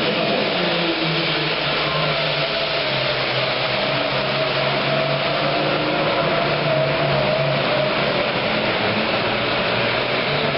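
Modified turbocharged diesel Super Farm pulling tractor engine running loud and steady under load, its pitch holding nearly level with a dense hiss over it.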